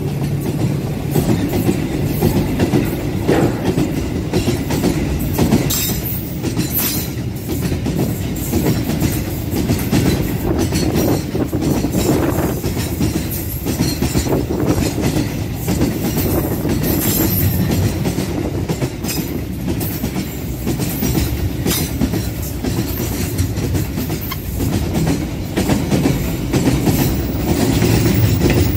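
Container freight train's flat wagons rolling past at close range: a steady rumble of wheels on rail, with repeated clacks and clatter.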